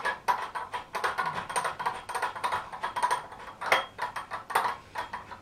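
Brass headgear of a crosshead basin tap being turned by hand back into the tap body: a quick, irregular run of small clicks as the metal parts turn on the thread.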